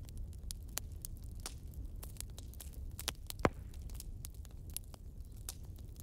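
Recorded wood fire crackling: irregular small pops and snaps over a low steady rumble, with one sharper, louder pop about three and a half seconds in.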